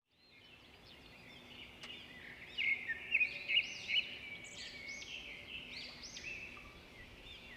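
Birds chirping and singing, many quick rising-and-falling calls overlapping, loudest between about two and a half and four seconds in, over a faint steady hum.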